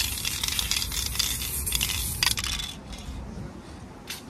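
Aerosol spray paint can in use: a hissing spray mixed with quick metallic rattling and clicking, which stops about two and a half seconds in.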